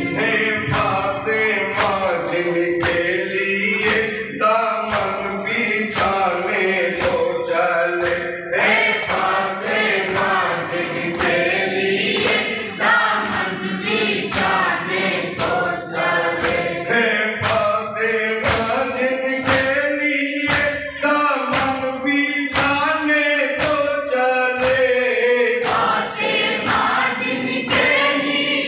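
A group of male voices chanting a Muharram nauha lament in chorus through a microphone, with steady unison chest-beating (matam), about three open-palm strikes every two seconds, keeping the beat.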